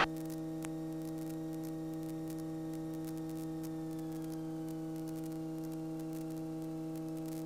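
Steady electrical hum with hiss and faint crackle on a light aircraft's intercom audio feed, with a faint high whine that slides a little lower about four seconds in.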